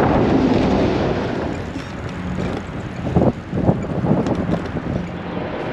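Wind buffeting the microphone of a camera riding along on a moving touring bicycle, with a few short knocks a little past halfway.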